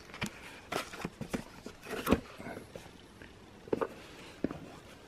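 Handling noise of a small cardboard firework box being turned over in the hand: irregular rustles, taps and clicks, with the sharpest knock about two seconds in and a few more taps near the end.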